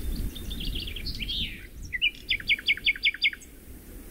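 A bird singing: a quick twittering phrase of high notes, then about two seconds in a louder run of about seven evenly spaced notes that each fall in pitch, over a low steady rumble.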